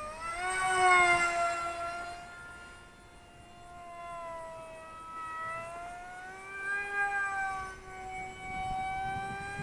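Zeta Z84 flying wing's electric motor and propeller whining in flight, the pitch sliding up and down as it passes and the throttle changes. Loudest about a second in, it fades, then swells again past the middle.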